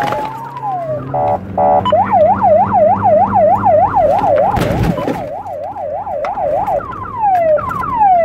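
Police car siren changing modes: a long rising wail, two short horn blasts, a fast up-and-down yelp, then a run of quick falling chirps. A car engine drones steadily underneath, and there is a single loud knock just before five seconds.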